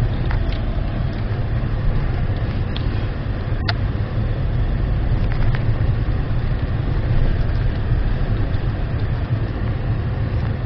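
Steady low rumble of an Acura MDX driving over a rough dirt track, with a few light knocks and rattles, the sharpest about three and a half seconds in.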